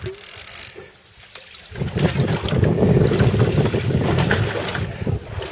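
Wind buffeting the microphone on a boat at sea, with a low rumble over water noise. It dips about a second in and comes back stronger from about two seconds.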